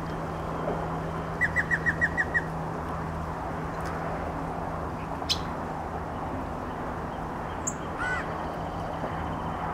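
Yellow-breasted chat singing in separate phrases with long pauses between them. About a second and a half in comes a rapid run of about seven short clipped notes. Later there are a few odd single notes, ending with a brief high note and a short looping whistle near the end.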